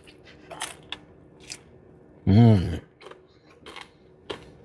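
Someone biting into and chewing a bureg, a Middle Eastern pastry roll filled with ground beef, the crust crackling in scattered short crunches, with a brief voiced 'mm' a little past two seconds in.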